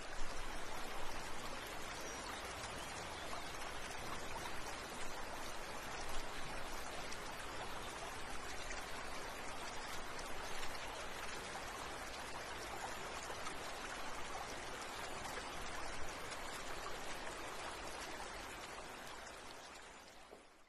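Steady rushing, pattering water noise, fading out near the end.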